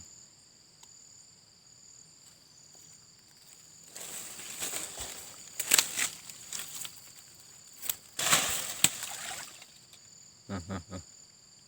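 Crickets trilling steadily, with two bouts of rustling through grass and brush, about four seconds in and again about eight seconds in, and a few short low sounds near the end.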